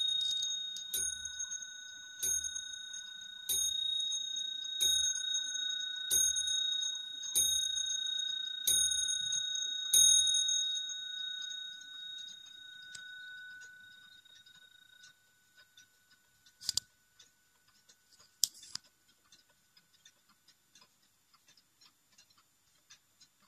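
Nineteenth-century Bourgeois wall clock striking twelve on its bell, one ringing strike about every 1.3 seconds, the last about ten seconds in, the ring then dying away over a few seconds. After that the clock's faint ticking, with two sharp clicks.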